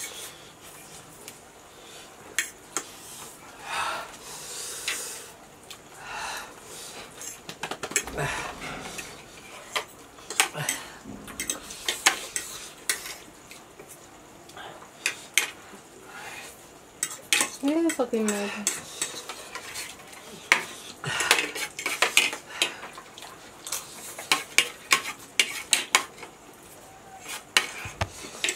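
Forks and spoons clinking and scraping on plates as two people eat instant noodles, with slurping. There is a short vocal sound about two-thirds of the way in.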